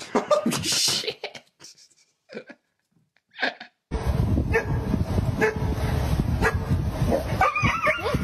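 Dog barking and yelping: short, loud yelps at first, then barks about once a second over steady outdoor noise.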